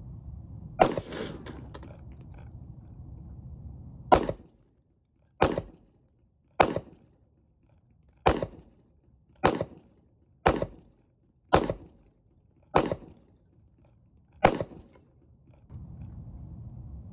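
Ten pistol shots from a Springfield XDM compact handgun, fired one at a time in slow aimed fire about a second or so apart, each a sharp crack with a short echoing tail.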